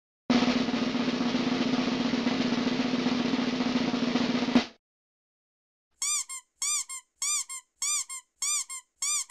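Cartoon sound effects: a steady rushing noise with a low hum lasts about four and a half seconds and cuts off. After a pause comes a run of short squeaks, each rising then falling in pitch, in pairs of a louder and a softer one, about two pairs a second.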